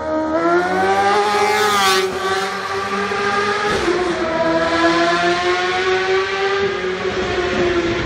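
Superbike engine at high revs under hard acceleration, its pitch climbing steeply, dropping suddenly about halfway, then climbing again and slowly falling away.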